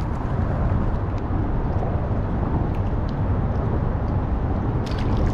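Steady low rumble of wind buffeting the camera's microphone, with a couple of faint clicks near the end.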